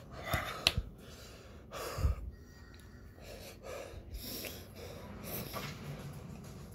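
A man's heavy, ragged breathing with sniffs and gasps, from the burning of a super-hot pepper chip he has eaten. A few short clicks in the first second and a louder thump about two seconds in.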